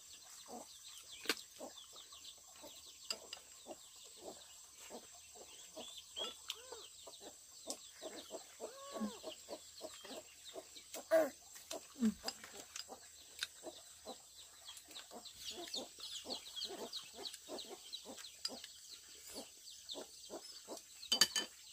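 Chickens clucking, a run of short calls repeating a couple of times a second, with a few louder calls among them.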